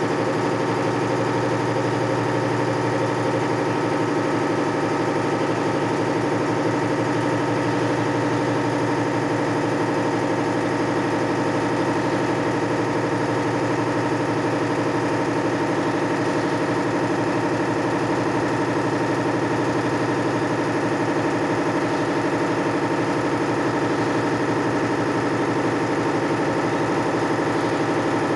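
Maruti 7.5 HP air compressor with a 500-litre tank running steadily: its electric motor drives the piston pump with a fast, even pulsing and no change in pitch.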